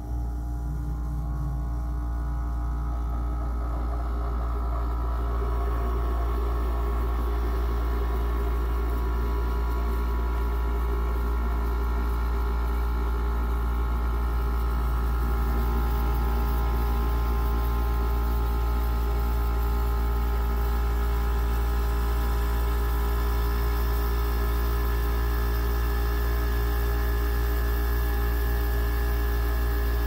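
Compressor of a Goldstar 5,050 BTU window air conditioner running with the fan switched off: a steady low hum that builds over the first five or six seconds, then holds steady.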